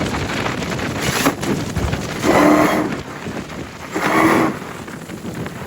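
Car engine revving in two short bursts, about two seconds and four seconds in, over steady wind buffeting on the microphone.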